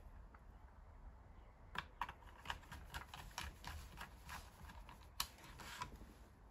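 A quick run of about a dozen small, sharp clicks and taps from hands and tools on a scan-tool tablet's plastic case and parts, starting about two seconds in and stopping near the end.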